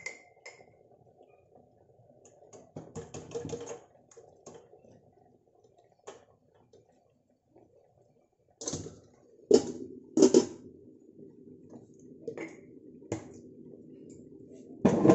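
Kitchen clatter: a quick run of light clicks from a glass jar being handled, then a few louder metal clanks with a short ring as a stainless steel lid goes onto the pan, and a final knock near the end, over a faint steady hum.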